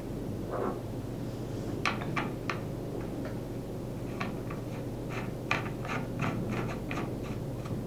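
Brass air fitting being screwed onto the air inlet of a pneumatic sealant gun's grip: a string of small, sharp metallic clicks and taps, starting about two seconds in, over a steady low hum.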